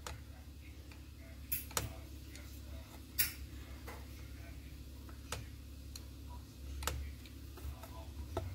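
Clear acrylic roller being rolled back and forth over a polymer clay cane on a hard work surface, giving scattered light clicks and taps about once every second or two over a low steady hum.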